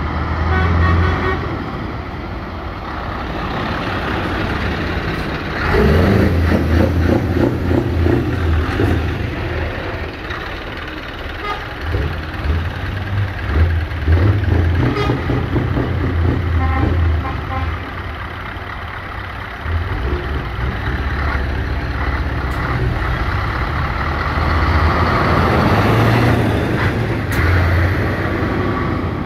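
Heavy trucks driving past one after another, their diesel engines rumbling, swelling and fading as each goes by.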